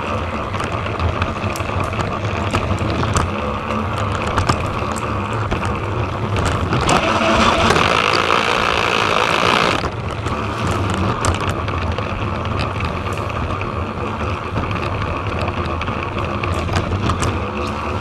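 Motorised Trackmaster toy train running along plastic track, its small battery motor whirring steadily with frequent light clicks. The whir grows louder for about three seconds near the middle, then drops off suddenly.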